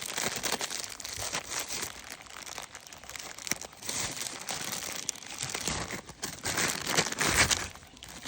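Plastic bag of beads being handled and rummaged through, crinkling irregularly, with louder rustles about halfway through and near the end.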